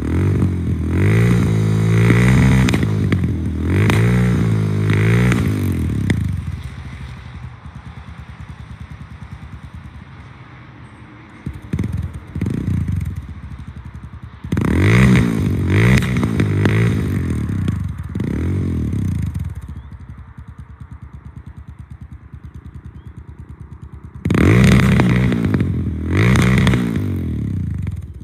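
Suzuki DR650 single-cylinder four-stroke with an unbaffled Screaming Demon exhaust, heard from about 25 m away, revved in three groups of sharp blips that each rise and fall in pitch, dropping back to a steady idle between the groups.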